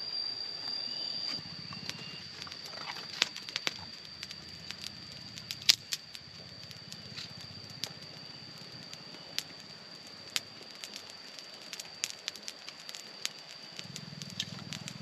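Small kindling fire of thin sticks crackling as it catches, with irregular sharp snaps, over a steady high insect drone.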